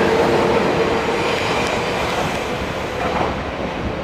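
Kintetsu electric commuter train running along the platform and moving away. A steady motor hum fades out within the first half-second, and the running noise of wheels on rail slowly dies down.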